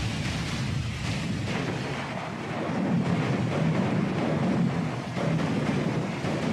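Heavy rain falling, a dense steady noise with a deep rumble underneath that swells a little about three seconds in.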